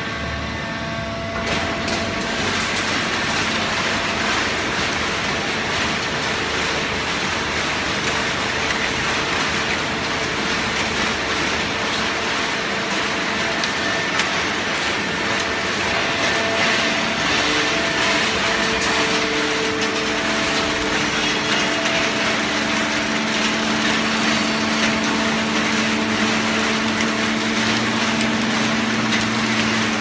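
Fully automatic horizontal hydraulic baler running: a steady hum from its motor and hydraulic pump under a constant noisy din of the machine working, the hum growing stronger in the last third.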